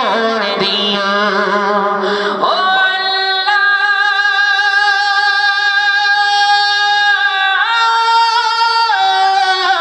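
A man singing a Bengali Islamic gazal into a microphone, a wordless drawn-out passage with no words sung: the voice climbs about two and a half seconds in to a long high note held for about four seconds, then steps to another held note near the end.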